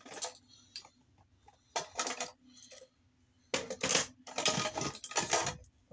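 Hard objects clattering and rattling as they are rummaged through and handled, in a short cluster about two seconds in and a longer run of clatter from about three and a half seconds in.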